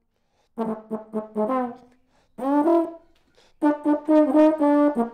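Solo brass instrument playing a melody in short phrases of notes, with pauses between them, and longer held notes near the end.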